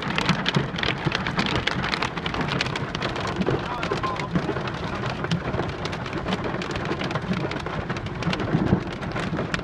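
Heavy rain falling steadily: a dense scatter of sharp drop impacts on a hard surface over a constant hiss.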